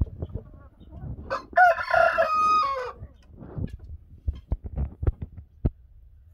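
A rooster crows once, a short crow of about a second and a half ending on a falling note. A few sharp knocks follow.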